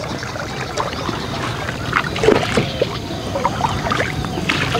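Paddles stroking through canal water as a small boat is paddled along, with water trickling and a few sharper splashes about two seconds in and near the end.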